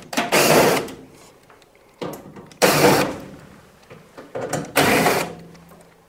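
Cordless drill-driver whirring in three short bursts, about two seconds apart, as it undoes the screws holding a tumble dryer's side panel.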